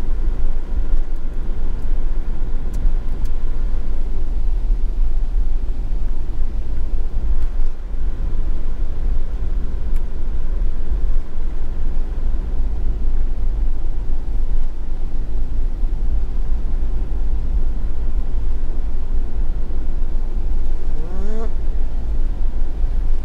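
Steady road noise heard inside a moving camper van's cabin: a constant low rumble of engine and tyres on wet asphalt.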